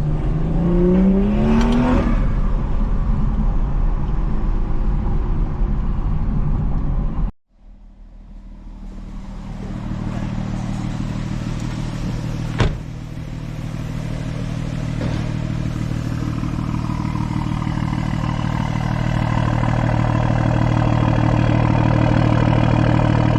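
BMW 340i's turbocharged straight-six on an AWE track exhaust accelerating, its note rising over the first couple of seconds, then running steadily. About seven seconds in the sound cuts out abruptly. It then resumes as a steady engine drone with a single sharp click partway through.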